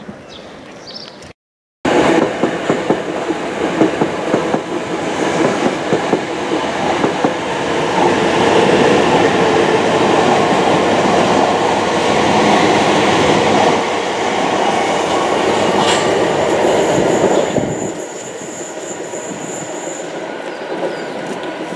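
Passenger train running past close by, its wheels clattering over the rail joints. It starts abruptly after a brief gap, stays loud for about sixteen seconds, then drops away sharply, with a thin high squeal near the end.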